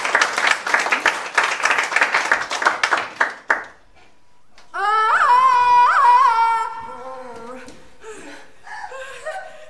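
A quick run of claps or smacks that stops about three and a half seconds in. After a short pause a high woman's voice makes a long sliding vocal sound, jumping up and down in pitch, then trails off into fainter vocal noises.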